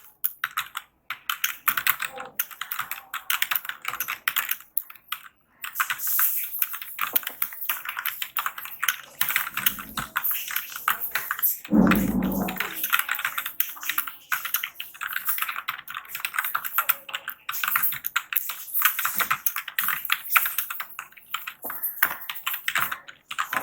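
Fast typing on a computer keyboard: a rapid, uneven stream of key clicks at about 56 words per minute, with a brief pause about five seconds in. One low thump about twelve seconds in.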